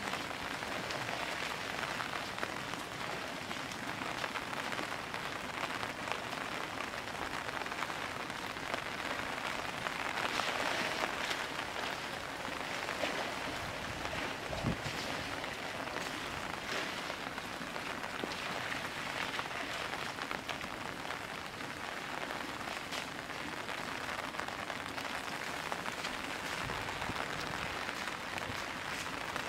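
Heavy rain falling steadily, with one dull thump about halfway through.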